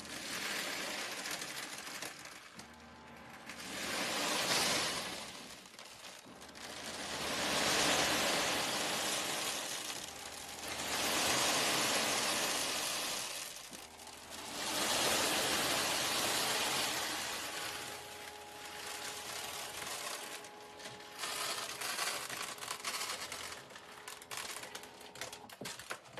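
Tofu-and-corn cat litter pellets rattling and sifting, with a dense gritty clatter that swells and fades every three to four seconds.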